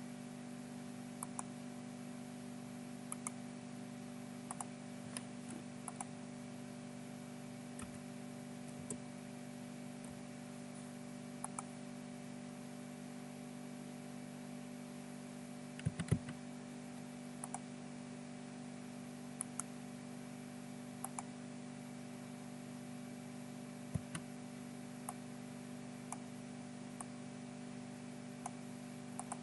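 Scattered computer mouse clicks and a few keystrokes over a steady low electrical hum, with a louder pair of clicks about sixteen seconds in.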